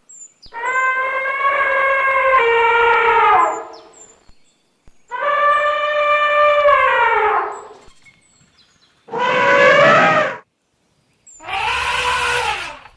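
Elephant trumpeting: four long, brassy calls in a row, each holding its pitch and then dropping away at the end, the third harsher and noisier than the others.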